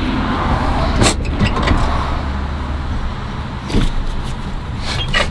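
Zero-turn riding mower engine idling steadily, with a few sharp knocks and clunks, about one, four and five seconds in, as someone climbs onto the mower seat.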